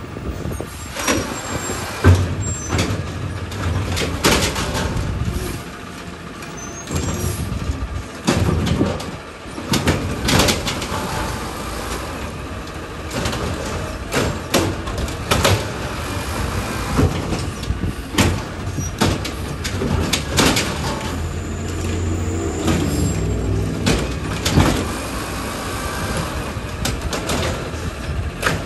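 Automated side-loader garbage truck emptying a wheeled trash bin: the engine runs and speeds up for a few seconds past the middle to power the hydraulic arm, with repeated metallic clanks and bangs as the arm lifts and shakes the bin and trash drops into the hopper.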